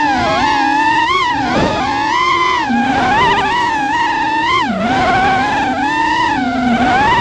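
Racing quadcopter's electric motors and propellers whining, the pitch rising and falling constantly as the throttle changes, with a few quick dips where the throttle is chopped for turns.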